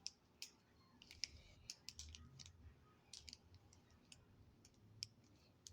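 Faint, scattered small clicks and rustles of hands handling and adjusting a wig and its elastic band.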